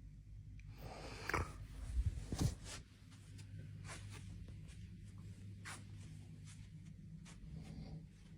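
A quiet pause between snores: a sleeping person's soft breath about a second in, then a few light clicks, over a low steady hum.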